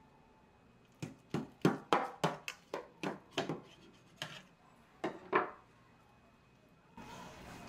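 Chef's knife cutting down through a slab of acorn jelly in a stainless steel bowl, the blade knocking on the bowl's bottom: about a dozen sharp taps, roughly three a second at first, then a few spaced ones, stopping a little after five seconds in. A soft rustle follows near the end.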